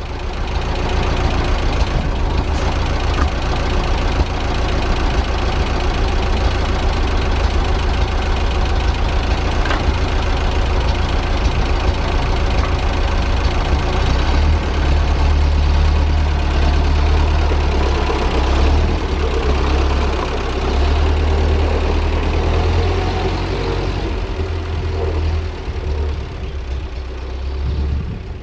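1930 Ford Model AA truck's four-cylinder flathead engine idling steadily through its short exhaust, with a strong, deep low end.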